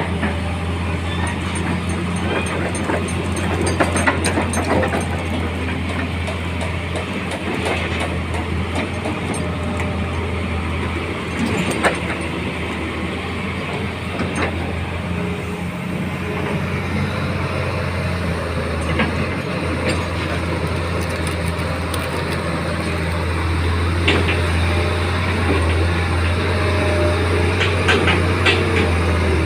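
Hitachi Zaxis 210F-5G excavator's diesel engine running steadily while the machine is worked, with occasional metallic knocks and clanks. It gets a little louder near the end.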